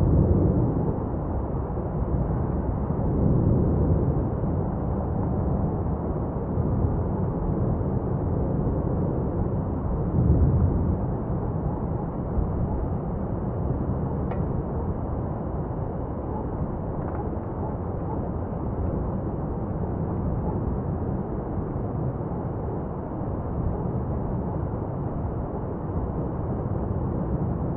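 Lava fountain erupting from Etna's South-East Crater during a paroxysm: a continuous low rumble of gas and lava jetting from the vent, swelling louder about three and a half seconds in and again around ten seconds in.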